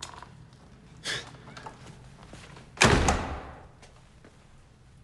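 Apartment door slamming shut about three seconds in: one sharp, loud bang that rings on for about a second in the stairwell. A quieter short sound comes about a second in.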